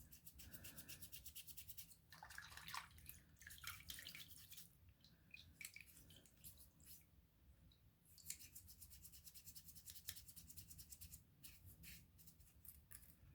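Faint, rapid scrubbing strokes of a small paintbrush's bristles working over a Swiss Army knife's tools and crevices, in quick runs at the start and again from about eight seconds in, with a few small clicks between.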